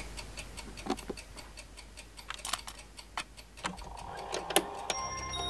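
A clock ticking steadily, with a few louder clicks mixed in. Near the end a faint steady hum comes in.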